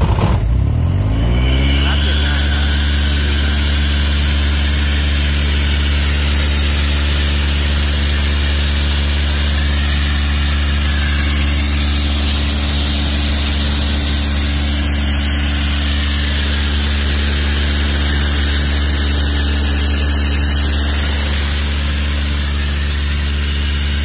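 Three-cylinder diesel engine of an Airman PDR 90S rotary air compressor catching and starting. It picks up speed over the first two seconds, then runs steadily.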